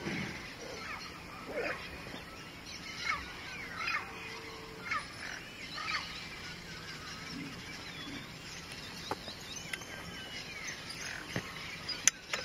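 Outdoor bird chorus: many short chirps and whistled calls from several small birds, scattered irregularly over a steady background hum of the marsh, with one sharp click near the end.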